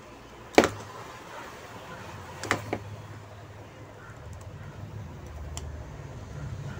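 Hard plastic knocks as a soldering iron and hand work against a washing-machine control board's housing: one sharp knock about half a second in and two lighter ones about two and a half seconds in, over a low steady rumble.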